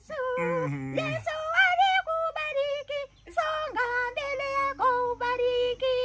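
A woman singing a melody in a high-pitched soprano voice, with held, wavering notes and short breaks between phrases, and a lower voice sounding beneath it at times.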